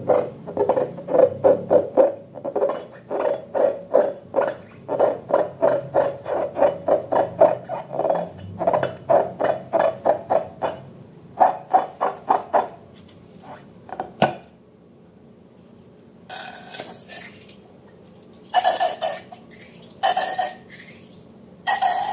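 Slime being worked by hand: a fast run of squelches, about four or five a second, that stops about two-thirds of the way in. A few separate, longer squelches follow near the end.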